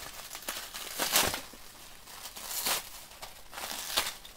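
Plastic bubble wrap crinkling and rustling as it is pulled open by hand, in several short louder bursts.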